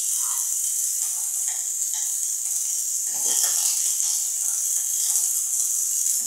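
Diced aubergine, red pepper and onion sizzling in a little olive oil in a frying pan: a steady hiss, with a couple of soft knocks about three seconds in and near the end.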